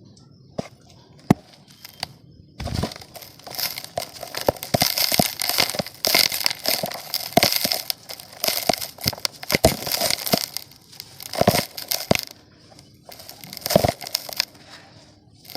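Dry mud being crushed and crumbled, crackling and crunching in uneven bursts with sharp snaps. A few isolated clicks at first, then steady crumbling from about three seconds in, with brief pauses near the end.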